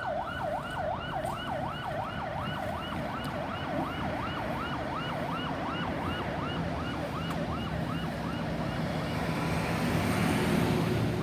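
Ambulance's electronic siren on a fast yelp, sweeping up and down about three times a second and fading away as it recedes. Near the end, road noise from a passing vehicle's engine and tyres swells up.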